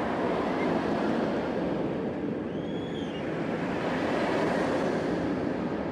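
Steady rushing noise of a roller coaster train running along its track, with wind rushing past. About two and a half seconds in there is a brief faint high rising-and-falling squeal.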